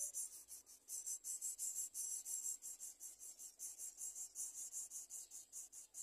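Greater coucal nestlings begging with a fast, high-pitched rasping call, several rasps a second, uneven in loudness.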